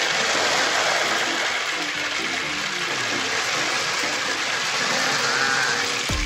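A steady stream of hard gumballs poured into a large aluminium stockpot of water, splashing and plopping continuously.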